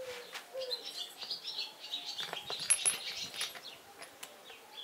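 Small birds chirping in quick, repeated calls, mixed with light clicks of metal parts being handled.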